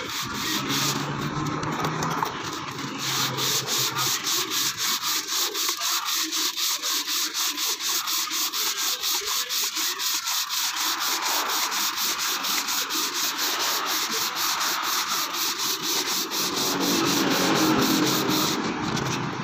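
320-grit sandpaper wrapped on a block being rubbed by hand over the gasket face of a 1994 Toyota Corolla four-cylinder cylinder head, dressing the surface flat and clean. Quick, even back-and-forth strokes, about four or five a second, settle into a steady rhythm about three seconds in.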